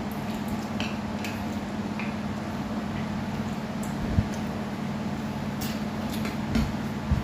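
Steady low hum of an electric stand fan, with faint clicks of chopsticks and spoons against plates and bowls, and two dull thumps, one about four seconds in and one near the end.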